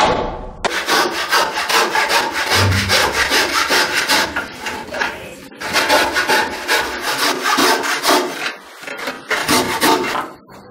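Wooden frame saw cutting through a carved wooden saddle tree by hand, in fast, even back-and-forth strokes, with a brief pause about halfway through.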